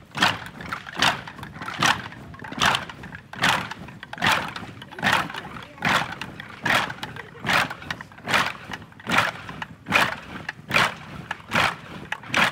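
Marching feet of a large column of militia stepping in unison, an even beat a little slower than once a second.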